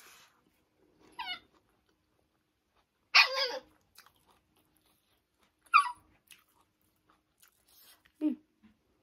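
A puppy whining for food: four short, high-pitched cries spaced a couple of seconds apart. The one a little past the middle is the loudest, and the last slides down in pitch.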